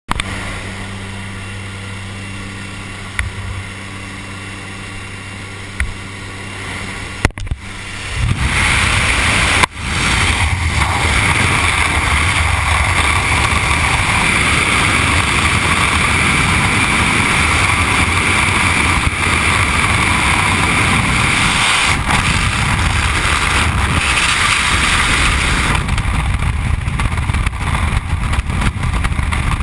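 A light jump plane's engine and propeller drone steadily inside the cabin with the door open, with a few small clicks. About eight seconds in, a loud rush of wind takes over as the skydiver moves out into the propeller blast at the open door, and it continues as freefall wind noise buffeting the helmet camera.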